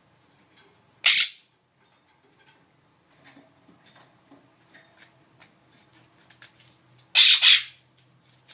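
A pet bird squawks loudly twice: a short squawk about a second in and a longer, double squawk near the end, with faint small clicks and taps in between.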